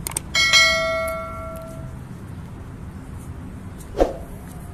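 Subscribe-button animation sound effect: a quick click followed by a bright bell ding that rings out and fades over about a second and a half. About four seconds in comes one short, sharp sound.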